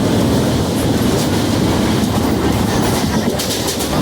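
Train running along the track: a steady rumble of wheels on rails, with a quick run of sharp clicks about three and a half seconds in.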